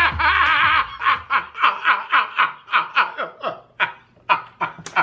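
A man laughing hard in quick repeated bursts, about three a second, that slow and trail off near the end.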